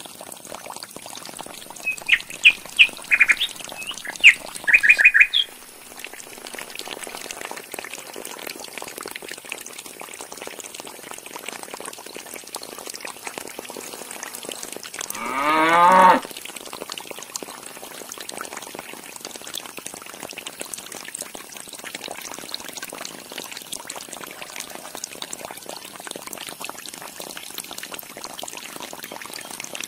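Water from a small DIY pump's hose pouring steadily into a little concrete trough. A burst of short high chirps comes a few seconds in, and one loud animal call rising steeply in pitch comes about halfway through.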